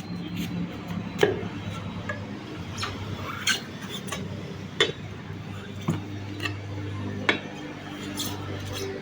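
Sharp clinks and knocks, irregular and about one every one to one and a half seconds, over a steady low mechanical hum.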